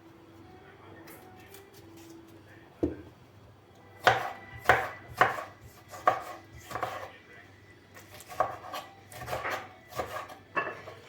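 Knife chopping on a cutting board: a single knock, then two runs of steady strokes about two a second.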